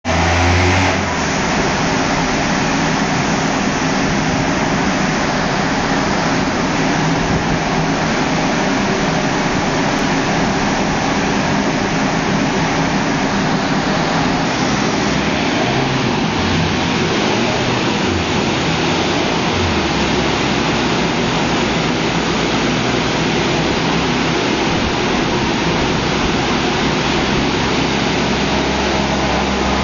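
Large rolling-road cooling fan blowing steadily, with the SEAT Ibiza FR TDI's diesel engine running at a steady speed beneath it, not revving; the low engine hum grows steadier about twenty seconds in.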